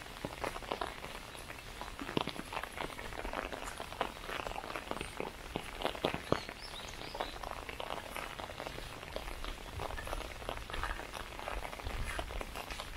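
Light rain: drops tapping irregularly on an umbrella held overhead, with a walker's footsteps along a path.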